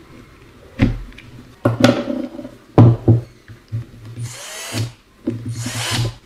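Replacement DC motor for a Bosch GSR 120-LI cordless drill run unloaded in a bench test, whirring in about five short bursts. The last two bursts are longer, with a whine that rises as it spins up and falls as it winds down. The new motor is working.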